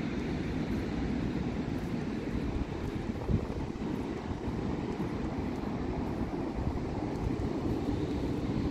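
Wind buffeting the microphone outdoors: a steady low rumble with a fainter hiss above it and one brief bump about three seconds in.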